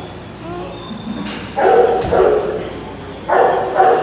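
A dog barking: two pairs of loud barks, the first pair about a second and a half in, the second near the end.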